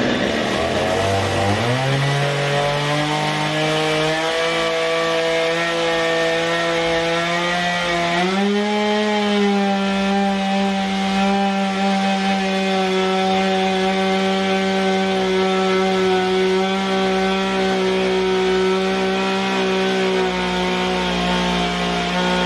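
Chainsaw revving up over the first couple of seconds and then running steadily at high speed as it cuts through log wood. Its pitch climbs once more about eight seconds in and eases slightly near the end.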